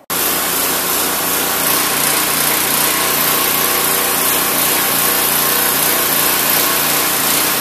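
Gasoline pressure washer's small single-cylinder OHV engine running at a steady speed, with the hiss of the water jet spraying from the wand. The sound starts abruptly and stays even throughout.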